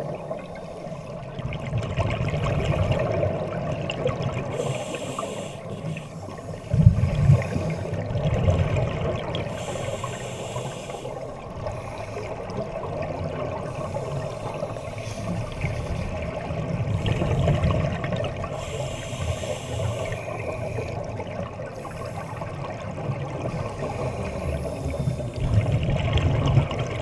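Scuba divers' regulator breathing and exhaled bubbles heard underwater: a muffled rumble that swells and fades, with a burst of hiss every several seconds. One sharper knock about a quarter of the way through.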